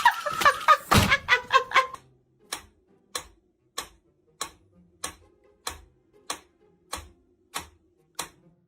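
A sharp tick repeating at an even pace, a little more than one and a half a second, after a brief stretch of voice-like sound.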